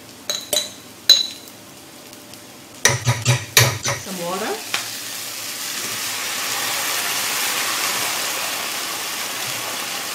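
Utensils knocking and clinking against a frying pan and a jar in the first few seconds, then a steady, loud sizzle as liquid is poured from a jug into a pan of hot frying chili-onion sambal paste and stirred with a wooden spatula.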